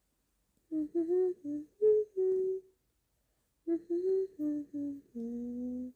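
A woman humming a short tune in two phrases, with a pause between them; the last note is held for nearly a second.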